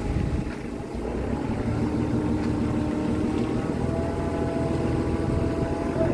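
TCM forklift's engine running steadily under the load of a heavy machine, its note rising slightly about a second and a half in.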